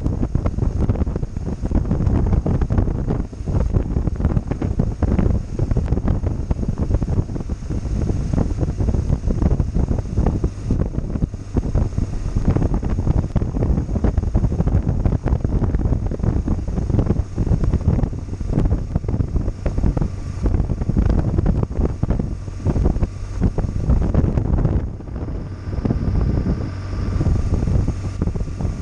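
Wind buffeting the helmet-mounted camera's microphone while riding a BMW R1200GS, with the bike's two-cylinder boxer engine running underneath. The buffeting eases briefly a few seconds before the end.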